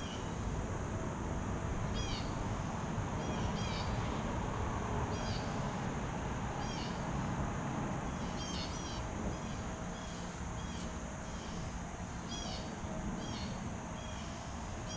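A bird calling over and over, short high notes every second or so and often in quick pairs, over a steady low outdoor rumble and a constant high hiss.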